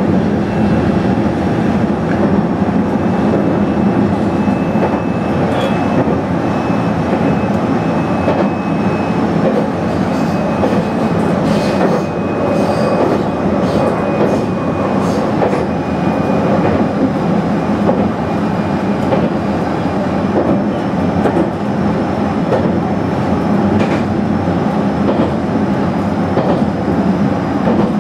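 Running noise inside a JR East HB-E300 series hybrid railcar at speed: a steady rumble of wheels on rail with occasional rail-joint clicks. A faint, thin high whine sounds over the rumble for about the first half.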